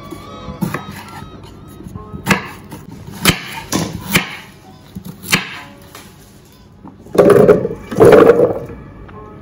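Chef's knife chopping carrots and beetroot on a wooden cutting board: a handful of single sharp knocks, irregularly spaced. Near the end, two loud rattling rushes as the cut chunks are tipped from a metal colander into a blender jar.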